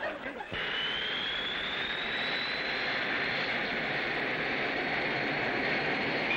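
Jet airliner engines running: a steady rush of noise with a high whine that comes in about half a second in and rises slowly in pitch, then holds steady.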